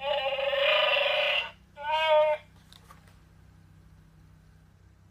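A Chewbacca sound-chip greeting card playing its recorded Chewbacca roar when opened: a long wavering howl that stops about a second and a half in, then one short call about two seconds in.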